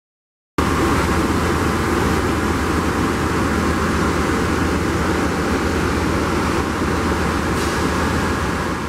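Metrolink F125 diesel locomotive running steadily while it stands at the platform: a low engine hum with a constant higher hiss over it, cutting in abruptly a little over half a second in.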